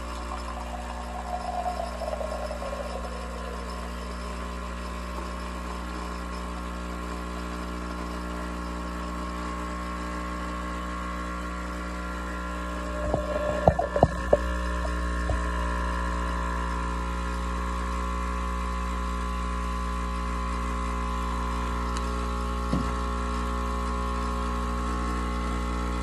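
Dolce Gusto capsule machine's pump running steadily with a buzzing hum as it dispenses a frothy milk drink in a thin stream into a glass mug. A few sharp knocks about halfway through.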